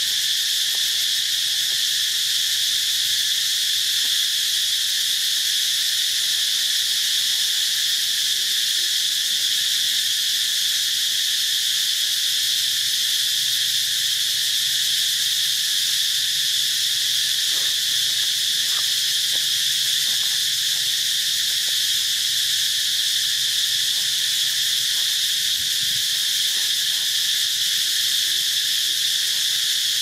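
Steady, high-pitched drone of an insect chorus that neither pulses nor changes.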